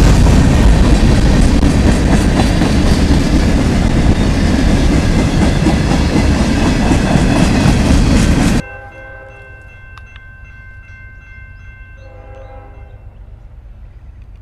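A freight train of tank cars and covered hoppers rolls past close by, with heavy wheel rumble and rail clatter. About eight and a half seconds in, this cuts off abruptly to a much quieter scene where a distant train horn sounds a long blast and then a shorter one.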